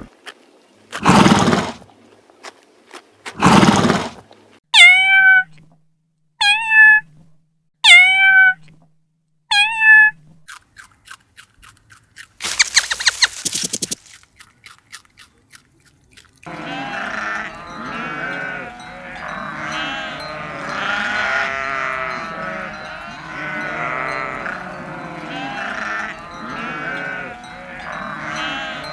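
A string of separate animal calls, including four short, evenly spaced calls that fall then rise in pitch, gives way after about sixteen seconds to a whole flock bleating at once, many calls overlapping continuously.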